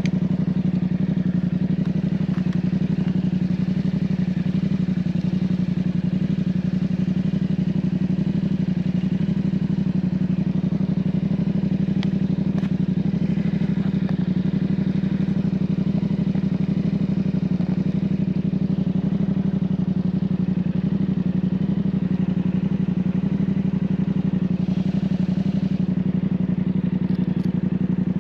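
Yamaha MT-07's 689 cc parallel-twin engine idling steadily through an aftermarket Ixil exhaust, its pitch unchanged throughout.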